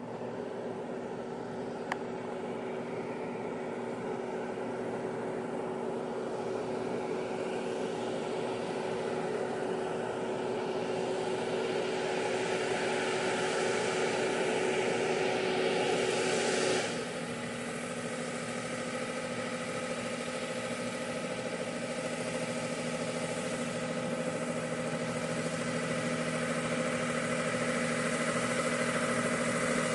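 Heavy truck's engine running under load, growing gradually louder, then dropping suddenly about seventeen seconds in and running on steadily. A single short click about two seconds in.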